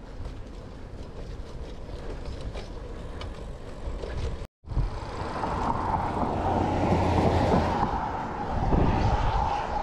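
Wind on the microphone and tyre noise from riding a bicycle. The sound cuts out for a moment about halfway, then comes back louder with a steady hum.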